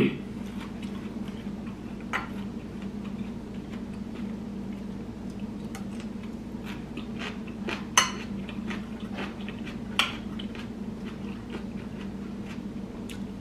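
Eating utensils clinking against a ceramic rice bowl, a few sharp clicks about two, eight and ten seconds in, with quieter chewing and mouth sounds between them, over a steady low hum.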